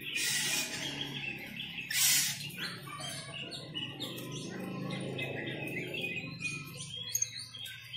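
Caged starlings chirping and calling over and over, with two loud harsh, hissing calls at the start and about two seconds in. A steady low hum runs underneath.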